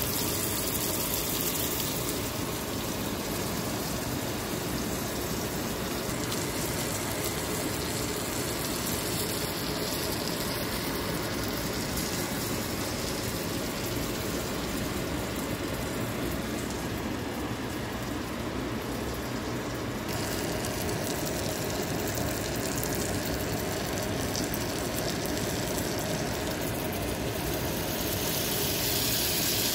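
Grouper fillets and spinach sizzling in butter in a frying pan: a steady sizzle that turns brighter and a little louder near the end as lemon juice is poured in.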